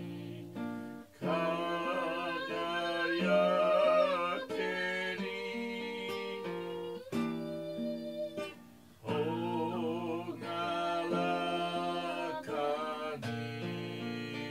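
A hymn sung with acoustic guitar accompaniment, in slow held phrases with short breaks between them.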